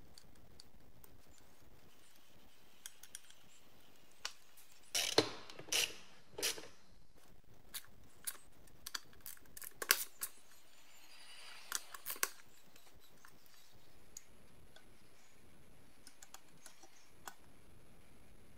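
Metal parts of a 1960s Omal money checker balance scale clicking and clinking as they are fitted together during reassembly. Scattered sharp knocks and clicks, a cluster about five to six and a half seconds in and more around ten and twelve seconds, with quiet stretches between.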